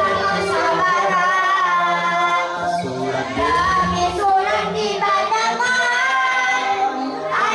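A group of children singing a march song together.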